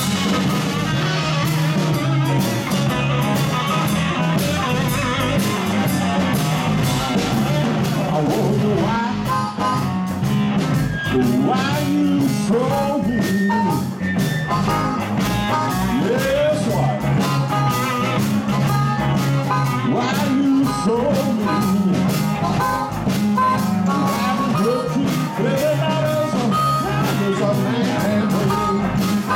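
Live blues band playing: electric guitars, bass and drums. From about nine seconds in, an amplified harmonica played into a vocal microphone wails bending notes over the band.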